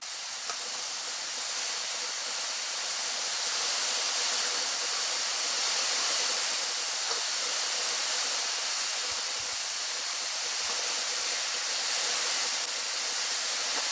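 A steady, even hiss, strongest in the upper register, starting and stopping abruptly.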